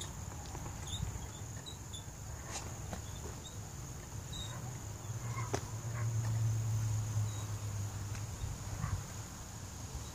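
Steady high-pitched drone of insects, over a low rumble that swells for a few seconds past the middle, with a couple of faint knocks.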